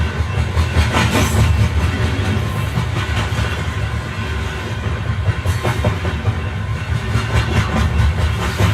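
Moving passenger train heard from on board: a steady low rumble of the running gear, with irregular clatter and clicks as the wheels pass over rail joints and points.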